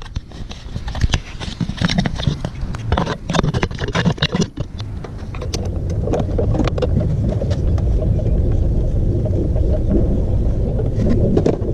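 Clicks and knocks of a camera being set down and of a wrench working on the clutch line fitting of a clutch master cylinder. A steady low rumble follows from about six seconds in.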